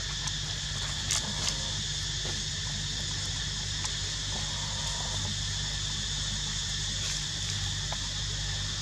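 Steady drone of insects in forest, several high even tones held without a break, over a low steady hum. A few light clicks or taps come about a second in.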